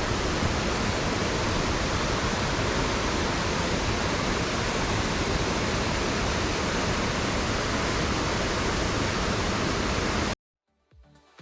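Mountain stream rushing with a steady roar of water, cutting off suddenly near the end.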